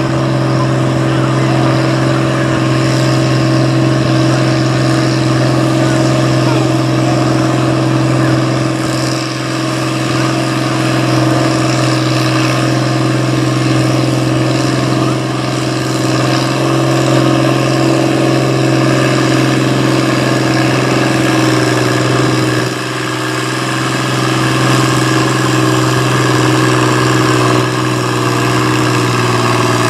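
Pulling farm tractor's engine running hard at high, fairly steady revs, as on a pull under load, with brief dips in loudness a few times.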